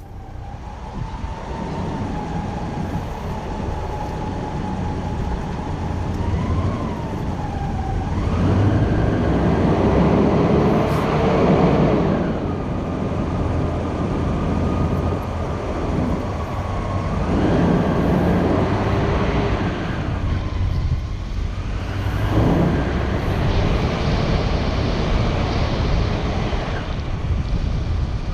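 Car engine and road noise as the car drives, pulling away in three surges, each with a rising engine note that drops away again.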